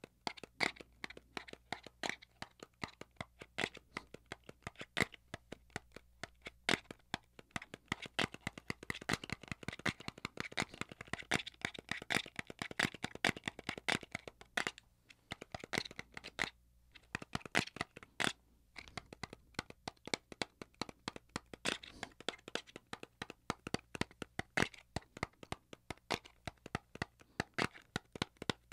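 Fingers tapping rapidly on a small disposable-vape box close to the microphone. The taps come as a quick, irregular patter with a short pause about halfway through.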